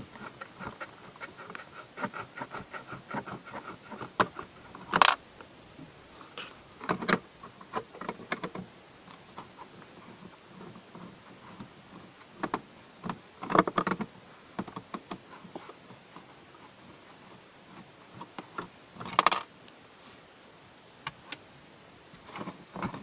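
Small irregular metallic clicks and rattles of a screwdriver undoing Torx screws and of loose screws being handled at a car dashboard's display mount, with a few louder sharp knocks of hard plastic and metal scattered through.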